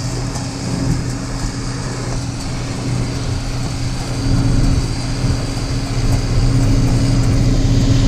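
A vehicle engine idling with a steady low hum, getting slightly louder about six seconds in.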